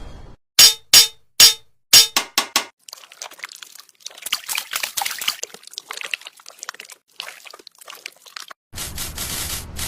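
Several sharp knocks in quick succession, then a long stretch of crackling, gritty scraping, then a steady rushing noise that starts abruptly near the end.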